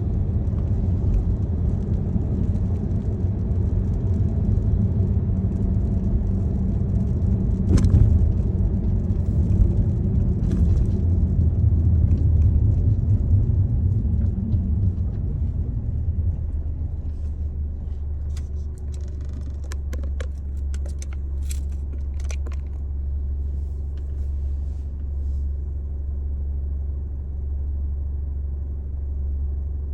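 Car interior road noise while driving: a low rumble that eases about halfway through into a steadier, quieter low hum. A scattering of light clicks and ticks comes in the second half.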